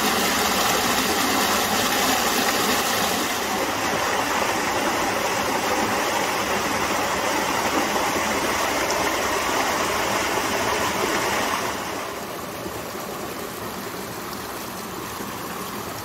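Creek water rushing and splashing over rocks in small cascades: a steady hiss of running water. About twelve seconds in, the sound drops to a quieter, gentler flow.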